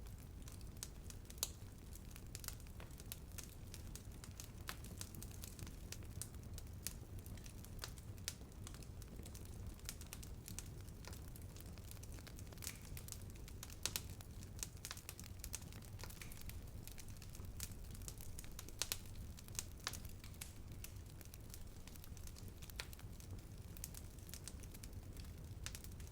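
Wood fire burning with a steady low rumble and irregular crackles and snaps, a few louder pops among them.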